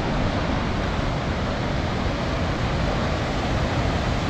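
Fast, heavy glacier-fed mountain stream rushing past, a steady, unbroken rush of water.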